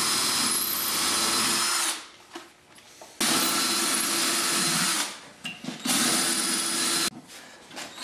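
Cordless drill boring pilot holes for screws into plywood: the motor runs at a steady whine, stops about two seconds in, then runs twice more for a second or two each, with short pauses between holes.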